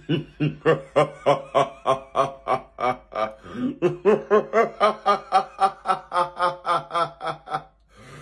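A man's long, rhythmic laugh, 'heh-heh-heh' pulses at about four a second and a fairly steady pitch, stopping shortly before the end.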